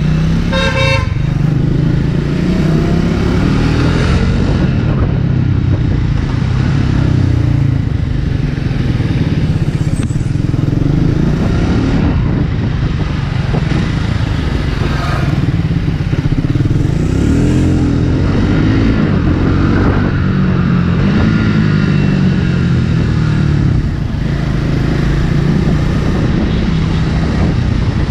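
Triumph Speed 400's single-cylinder engine running under way, its pitch rising and falling several times as the rider accelerates and eases off. A vehicle horn toots briefly about a second in.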